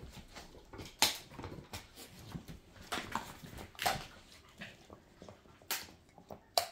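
Dogs chewing on hard chew treats: irregular crunches and clicks of teeth biting into the chews, a few louder bites among many small ones.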